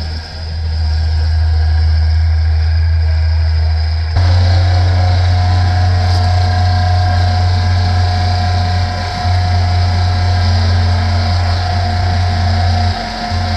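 John Deere 1445 front-mount mower's three-cylinder diesel engine running steadily, with a strong low hum.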